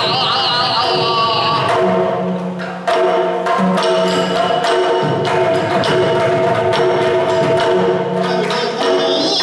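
Yakshagana ensemble: a sung line trails off early, then chande and maddale drums play a quick run of sharp strokes over a steady drone, and the singing comes back in near the end.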